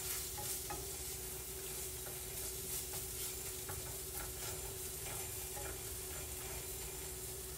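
Vegetables and flour sizzling in oil in a nonstick skillet, the flour browning for a gravy roux, while a whisk stirs through the pan with soft irregular scraping taps. The sizzle is a steady hiss.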